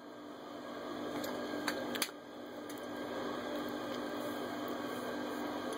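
Steady indoor room noise: a constant low hum under an even hiss, with a couple of faint clicks about two seconds in.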